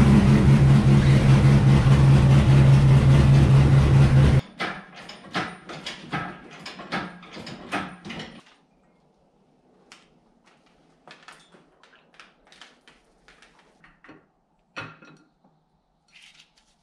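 A 2001 Corvette C5 Z06's V8, said to be a built 408 stroker with LS3 heads, running loudly for about four seconds, then stopping abruptly. After that come scattered metallic clanks and clinks of tools and engine parts, fainter and sparser after about eight seconds.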